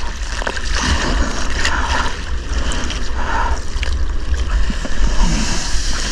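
Ocean water splashing and sloshing around the nose of a surfboard as it is paddled through chop, in irregular splashes about every second. A heavy low rumble of water and wind buffets the action camera's microphone throughout.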